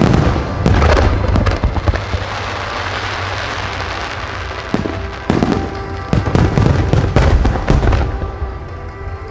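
Starmine fireworks salvo: shells bursting in quick succession, a dense run in the first two seconds and another from about five to eight seconds in, with music playing underneath.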